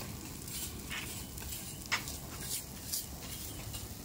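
Open wood fire crackling and sizzling as it burns a whole ram carcass, with a few sharp pops, the loudest about two seconds in, over a steady low rumble.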